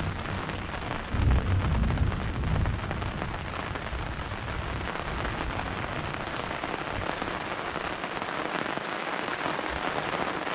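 Steady rain falling, with a low rumble in the first few seconds.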